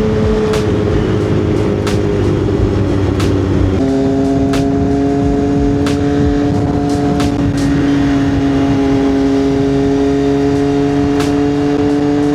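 2025 CFMOTO 675SS inline three-cylinder engine and aftermarket exhaust pulling the bike along the road. About four seconds in the engine note steps up, then holds steady.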